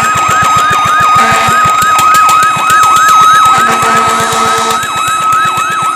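Fire truck siren on a fast yelp, sweeping up and down about four times a second over a steady held tone. Blasts of an air horn cut in twice, about a second in and again around four seconds.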